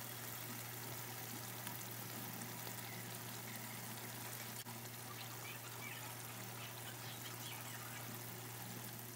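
Karahi gravy sizzling in the wok, a steady even hiss with faint crackles, over a low steady hum.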